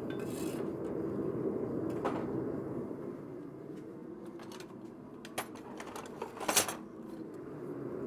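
Steady low workshop rumble with a few scattered knocks and clanks; the loudest, a short clatter, comes about six and a half seconds in.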